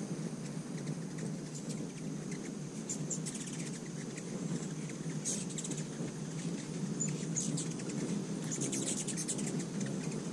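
Ruby-throated hummingbirds chattering in short runs of quick, high chips, several times, over a steady low hum.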